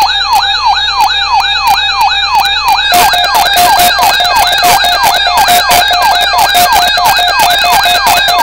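Electronic siren alert tone: a loud, rapidly repeating rising-and-falling wail, about two to three sweeps a second, sounding for an NOAA Weather Radio emergency alert. About three seconds in, a second alarm layer joins with a steady pulsing tone under the sweeps.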